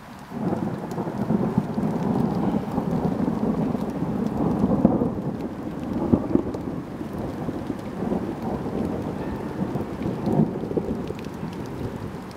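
Thunderstorm: rain falling under a continuous low rumble of thunder, with a few louder peaks about five, six and ten seconds in.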